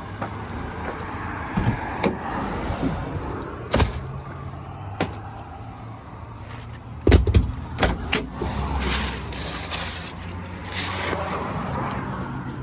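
Vehicle running with a steady low hum, heard from inside, with scattered knocks and clicks and a louder clatter about seven seconds in.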